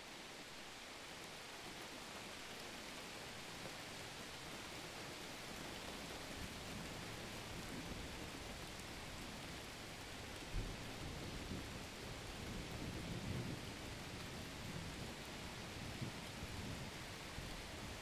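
Steady rain with thunder. A low rumble builds through the first half, a sudden clap comes a little past halfway, and uneven rolling rumbles follow.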